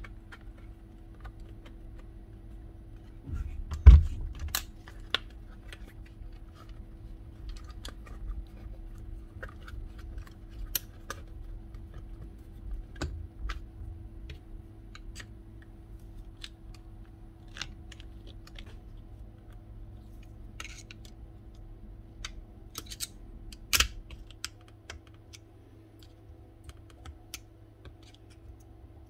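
Scattered clicks and knocks of the cordless crown stapler's plastic housing and internal parts being handled and worked on, with a louder knock about four seconds in and a sharp click near the end.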